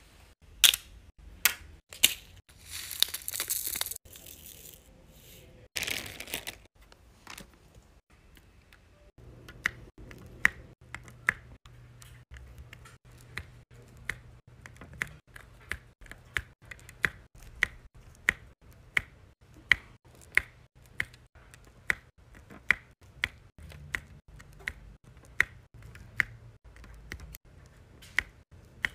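Diamond-painting pen tapping round drills onto the sticky canvas, a steady run of short sharp clicks about two a second over a low hum. Before that, in the first few seconds, there are a few clicks and a spell of crinkling rustle, like plastic film being handled.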